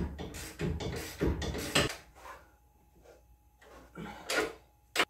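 Hand ratchet tightening brake caliper bolts: a run of short ratcheting strokes in the first two seconds, then another stroke about four seconds in and a sharp click near the end.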